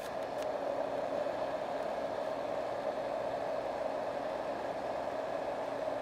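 Marpac Dohm fan-type white-noise machine running at its highest setting alongside a cheaper second sound machine, together giving a steady rush of fan noise with a faint low hum. The noise grows a little louder in the first second as the Dohm's cap is turned all the way up.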